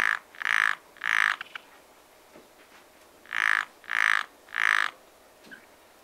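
A frog croaking in two runs of three short calls, each call about a third of a second long, with the second run starting about two seconds after the first ends.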